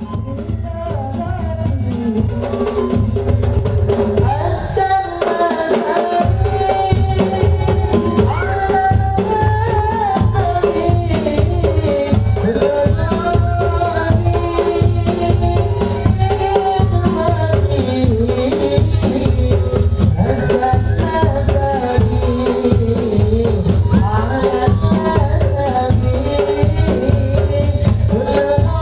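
Madurese hadrah music: a sung melody over a dense, steady beat of frame drums with jingling percussion and a heavy low drum, swelling up over the first couple of seconds.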